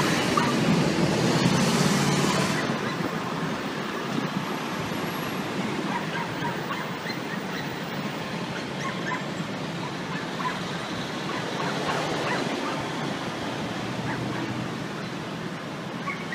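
City street traffic noise, with a vehicle passing in the first couple of seconds, then a steady hum of traffic and scattered short, high calls.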